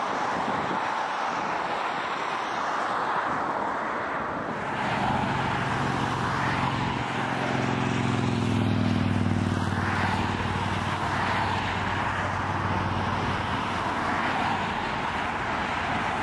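Jet airliner engine noise with some wind. From about five seconds in, the CFM56 engines of a Southwest Boeing 737-700 on final approach grow louder as a steady low droning hum, which fades again near the end.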